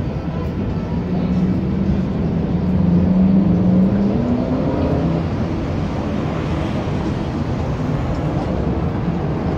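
Street traffic on a wide city boulevard: a steady rush of car engines and tyres. One vehicle's engine hum rises in pitch as it passes, loudest about three to four seconds in.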